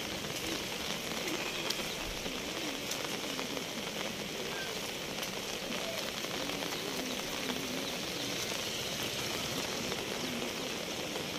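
Steady hiss of rain falling outdoors.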